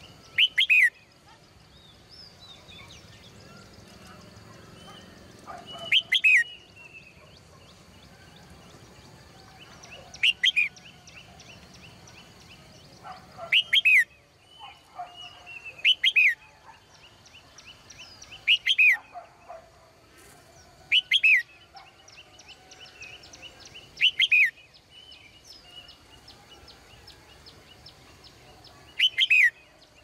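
Caged red-whiskered bulbul calling: a short, loud phrase of quick falling notes, repeated nine times a few seconds apart, with softer chirps between.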